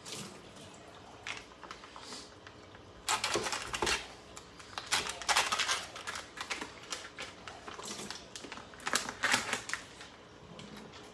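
Irregular run of quick clicks, taps and short splashy bursts from a plastic firm-tofu container being handled at the sink: its water drained off and the tofu cut with a knife inside the container.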